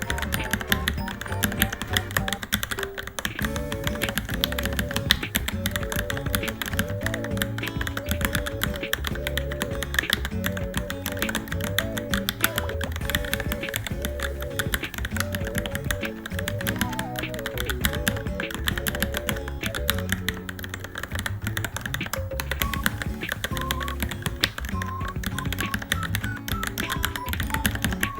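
Varmilo Minilo mechanical keyboard being typed on continuously, a quick run of key clicks, under background music with a melody.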